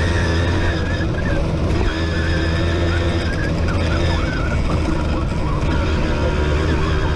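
Simson moped's single-cylinder two-stroke engine running steadily at high revs while riding, heard from a camera mounted on the bike.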